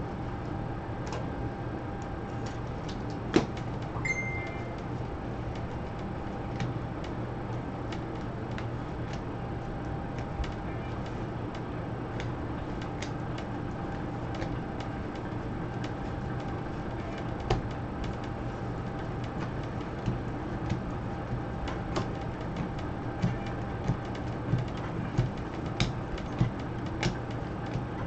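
Trading cards being handled and shuffled in gloved hands: scattered light clicks and taps of card stock, more frequent near the end, over a steady low hum and hiss.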